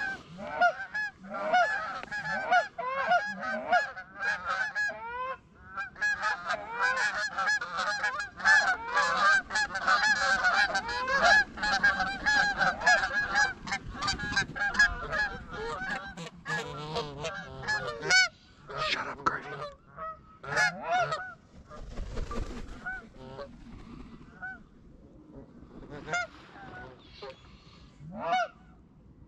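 A flock of Canada geese honking, many calls overlapping. The calling is densest in the middle and thins to scattered single honks near the end.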